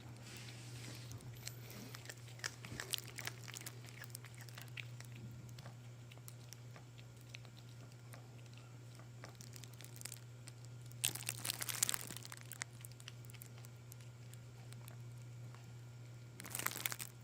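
A kitten chewing and crunching vegetable peels: scattered sharp crunches and clicks, with louder spells of crinkly rustling about eleven seconds in and again near the end. A steady low hum runs underneath.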